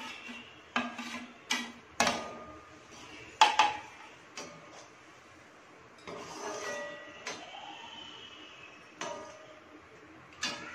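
Kitchen clatter: a plate knocking against a metal kadhai as roasted vermicelli is tipped into boiled milk, then a ladle and plate clinking. A quick run of sharp clinks, loudest about three and a half seconds in, then a few sparse knocks.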